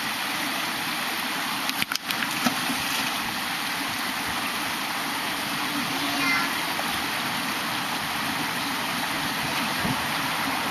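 Mountain valley stream rushing steadily over rocks, with a few sharp clicks about two seconds in.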